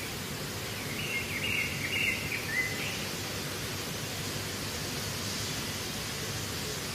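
A cluster of short, high-pitched peeps from goslings for about two seconds, over a steady outdoor background hiss.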